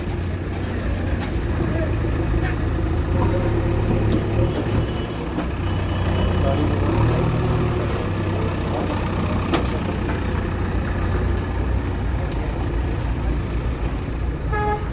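Diesel engine of a demolition bulldozer running steadily, swelling for a few seconds in the middle as it works, with scattered knocks. A brief toot near the end.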